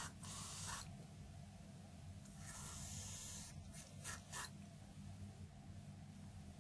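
Ikon lock cylinder core being rubbed clean on a cloth: faint scrubbing strokes, two of about a second each and a few short ones about four seconds in, over a low steady hum.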